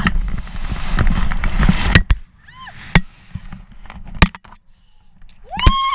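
Wind rushing hard over the camera microphone during a rope-jump freefall, cutting off about two seconds in with a sharp knock. Then a few clicks and knocks from the rope and harness, a short cry, and near the end a woman's high-pitched scream.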